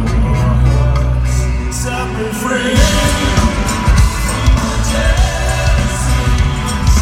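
Live rock band playing loudly in an arena, with a male lead vocal over heavy bass, drums and a brass section of trumpets, trombone and saxophone. About three seconds in, a held bass note gives way to a pounding drum beat.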